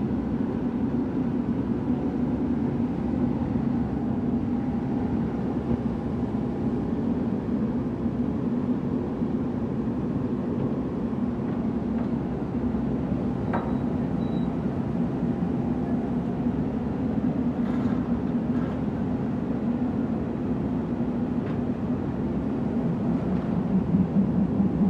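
A heavy diesel engine running steadily, a little louder near the end.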